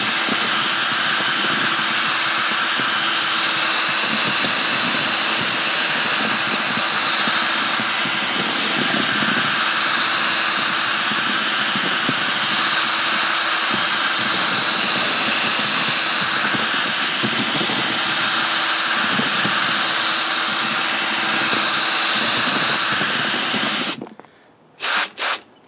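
Power drill spinning a large mixing paddle through foamed cement slurry for aircrete, running steadily with a constant motor hum. It stops about two seconds before the end, then two short bursts follow.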